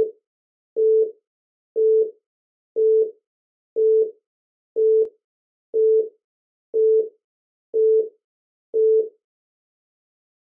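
Countdown timer beeps: ten short beeps of one steady tone, one a second, counting down from ten.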